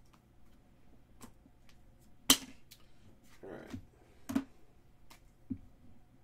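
Hard plastic card holders and trading cards handled on a tabletop: a sharp click about two seconds in, a short sliding rustle, another click a second later, then a soft knock near the end.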